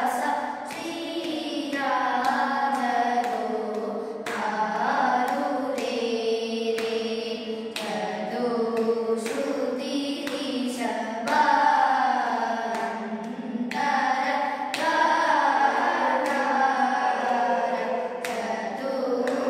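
Vocal students singing a Carnatic music practice piece together, holding and gliding between sustained notes, with hand claps sounding every second or two to keep the tala.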